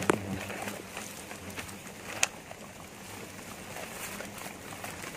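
Rustling and scraping of dry grass and plastic sheeting as a small ground wasp nest is dug out by hand with a knife, with sharp clicks just after the start and about two seconds in.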